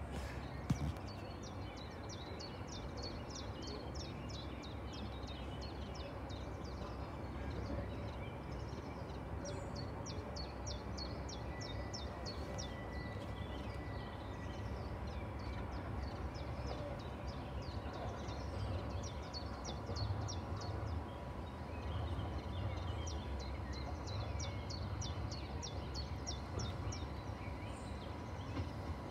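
A songbird singing in four bouts of quick, high, falling notes, several seconds apart, over a steady low background rumble.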